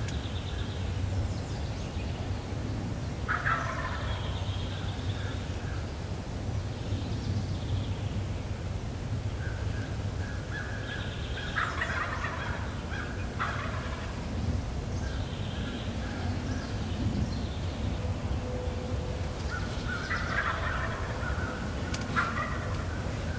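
Wild turkeys gobbling: three clear gobbles several seconds apart, with fainter gobbles between, over a steady low wind rumble.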